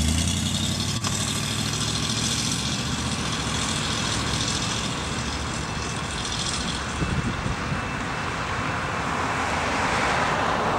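1968 Camaro's 327 small-block V8 running, a steady low note at first, then pulling away down the street. Road traffic noise grows near the end.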